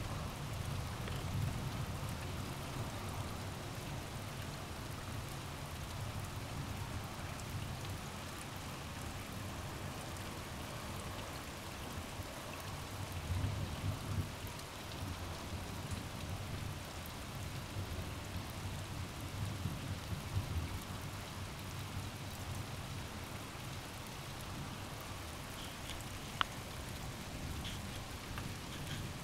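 Steady rain falling during a thunderstorm, with low rolls of distant thunder swelling now and then, about halfway through and again a little later. One sharp tick sounds near the end.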